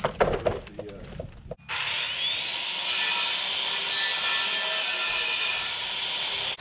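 Footsteps and rattling of tools for about a second and a half, then an abrupt change to a power tool motor spinning up with a rising whine and running steadily at high speed, cutting off near the end.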